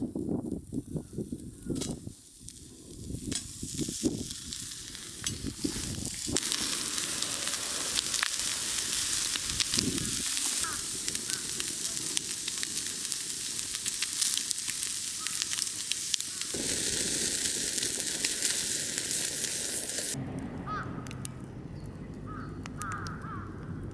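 Food sizzling steadily in a hot pan, full of small crackles. It starts a few seconds in after a few handling knocks and cuts off near the end, leaving crows calling faintly.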